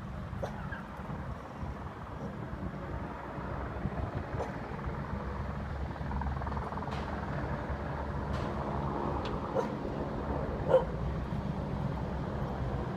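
Distant hovering helicopter: a low steady rumble that grows a little louder about six seconds in. A few short sharp sounds break in over it, the loudest about eleven seconds in.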